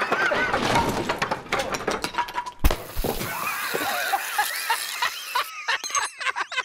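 A metal beer keg thrown by a catapult smashes into a barn wall with one loud crash about two and a half seconds in, then beer sprays and hisses out of the burst keg for about three seconds.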